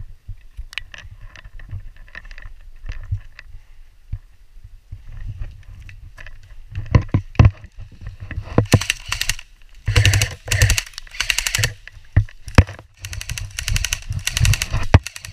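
Airsoft guns firing on full auto: several rapid strings of sharp clicking shots in the second half, each burst lasting about half a second to a second. Before them come scattered knocks and handling bumps.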